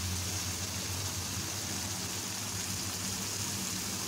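Spice paste sizzling softly in oil in a karai, nearly cooked down with the oil separating from it. The sizzle sits under a steady low hum.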